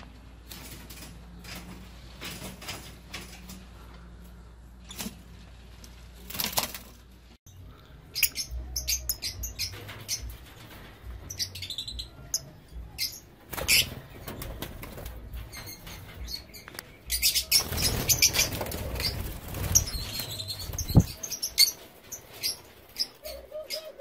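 Lovebirds chirping with short, high-pitched calls and flapping their wings, busiest in the second half. For about the first third there is only a steady low hum with a few clicks.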